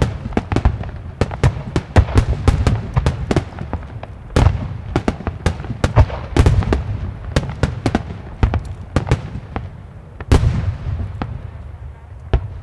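Rapid barrage of aerial firework shells bursting: a dense, irregular run of sharp bangs with deep rumbling echoes. There is one big boom about ten seconds in, then the bangs thin out near the end.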